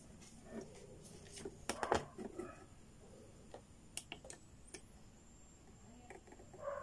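A few sharp clicks and small taps from handling multimeter test probes against a TV's circuit board: a quick cluster about a second and a half in and a single click about four seconds in.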